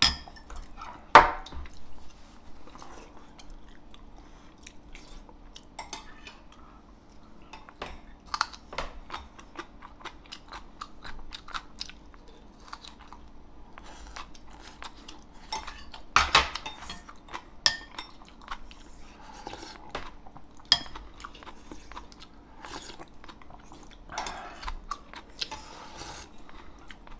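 A person chewing food at the table, with a metal spoon clinking and scraping against a ceramic bowl now and then; two sharper clinks come about a second in and about halfway through.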